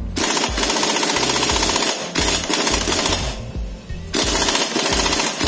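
Impact wrench hammering in two long bursts, the first about three seconds long and the second starting about four seconds in. It is working a nut on the Husaberg 450 engine's shaft, but the whole shaft spins with it, so the nut does not come loose.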